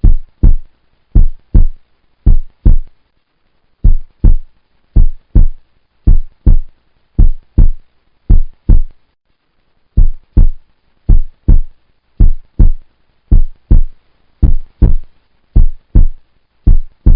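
Background music made of deep bass drum hits, mostly in pairs and threes, with dead silence between them.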